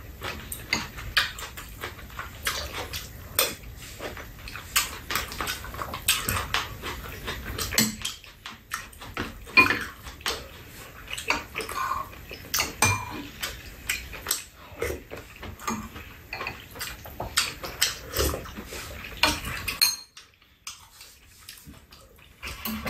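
Metal spoons and chopsticks clinking and scraping irregularly against ceramic bowls and a metal serving tray during a meal, with eating sounds mixed in. The clatter breaks off abruptly near the end.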